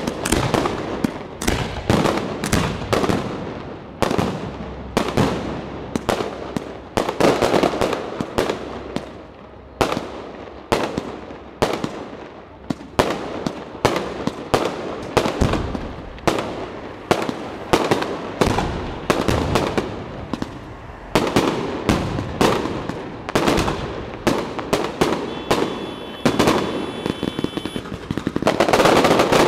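Aerial fireworks shells bursting overhead in quick succession, one or two sharp bangs a second with crackling between them, thickening into a dense, continuous barrage near the end.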